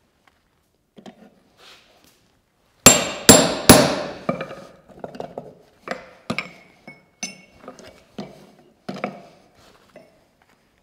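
Hammer blows on handled set tools held against red-hot steel on an anvil. About three seconds in come three loud blows in quick succession, followed by a run of lighter, irregular blows, a few leaving a short metallic ring.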